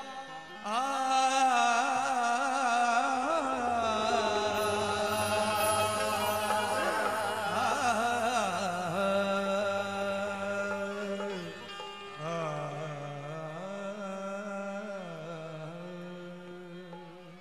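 Qawwali: a man singing long, wavering, ornamented notes with harmonium accompaniment. A new phrase begins about two-thirds of the way through, and the music dies away near the end.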